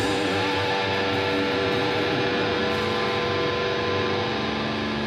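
Amplified electric guitars letting held notes ring out between songs, steady and without drums; a low sustained note comes in about two and a half seconds in.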